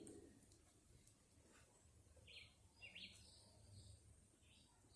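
Near silence outdoors, with a few faint, short bird chirps.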